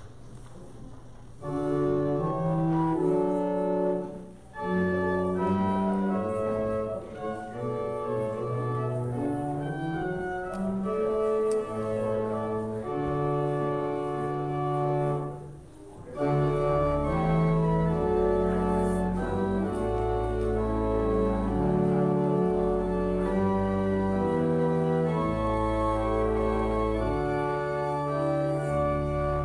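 Church pipe organ playing a postlude after the benediction: slow, sustained chords entering about a second and a half in, with two brief breaks between phrases. Deep pedal notes join after the second break, about halfway through.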